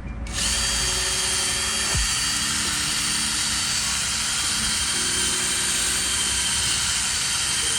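Electric drill spinning a 3M sanding disc against a plastic headlight lens. It starts about a third of a second in and runs steadily, a loud hiss with a thin high whine.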